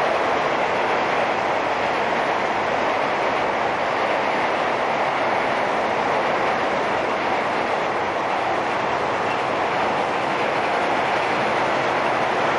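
Electric commuter train running across a steel truss railway bridge: a loud, steady rushing noise of the wheels on the rails, with no single knock or horn standing out.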